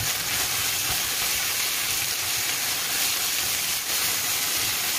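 Sliced beef and onion sizzling in hot oil in a nonstick frying pan as a spatula turns them: a steady, high hiss.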